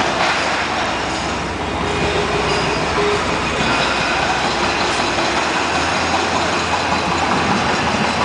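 A machine engine running steadily, a continuous loud drone with no separate impacts.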